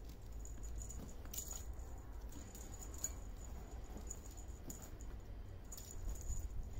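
Kittens playing among plastic balls, tinsel and tissue paper: soft, scattered rattling and rustling, with a faint high jingle that comes and goes.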